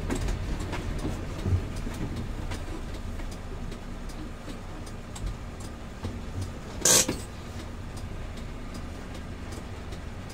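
Mitsubishi Fuso Fighter truck's diesel engine and road noise inside the cab as it drives slowly on a rough wet road, a steady low rumble with scattered light rattles and clicks. About seven seconds in, a short, loud burst of noise stands out.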